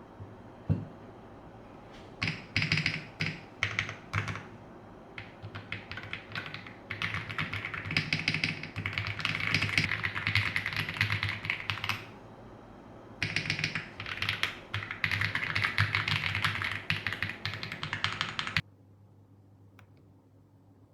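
Typing on a Noir Gear Spade65 mechanical keyboard: a few separate keystrokes, then two long runs of fast, continuous typing. The clatter cuts off abruptly near the end.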